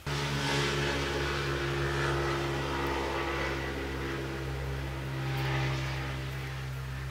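A steady engine hum that starts suddenly, with a rushing noise that swells about a second in and again near the end.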